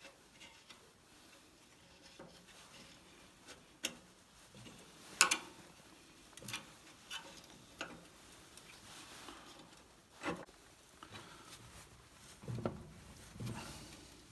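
Quiet handling noises of the fireplace door and its seal cord being worked: scattered light clicks and knocks, with one sharper click about five seconds in.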